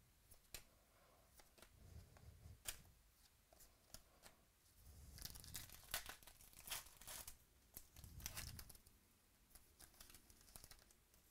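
Faint tearing and crinkling of a foil trading-card pack wrapper being opened by hand, with sharp crackles busiest around the middle and light clicks and rubs of cards being handled.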